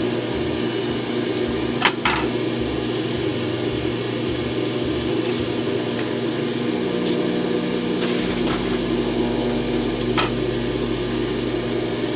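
Steady electric motor hum, with a few light clicks and rustles as gingham fabric is folded over and pinned by hand.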